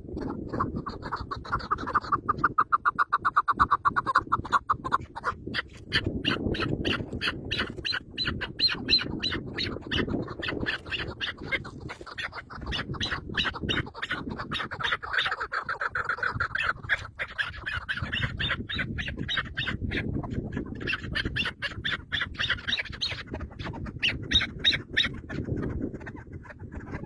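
A bird squawking in rapid, harsh, repeated calls, several a second, over a low rustling.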